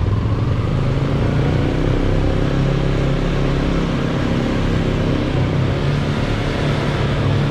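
Yamaha Sniper 155's single-cylinder engine running under throttle as the motorcycle pulls away on an uphill in traffic, over a steady rush of noise.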